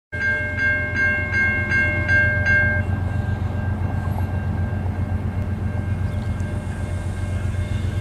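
Steady low rumble of approaching GE ES44AC diesel locomotives, with a bell ringing in quick strokes, about three a second, that stops about three seconds in.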